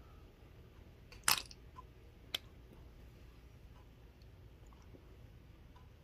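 Mustard squeeze bottle squirting: one short burst of air and mustard forced through the nozzle about a second in, then a single small click. Faint room tone otherwise.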